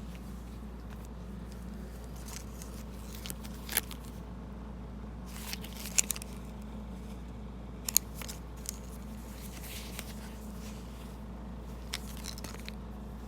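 Packaging and jersey fabric being handled, with a few short crinkles and rustles scattered over a steady low hum.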